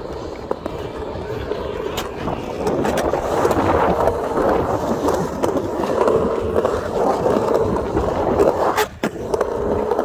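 Skateboard wheels rolling over concrete, a steady rumble that gets louder about two seconds in. Sharp clacks come at about two seconds and again near the end, where the rumble briefly drops out.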